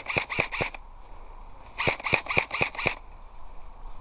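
Airsoft rifle firing strings of rapid shots, about four a second: one run stops just under a second in, and a second run of about six shots goes from about two to three seconds in.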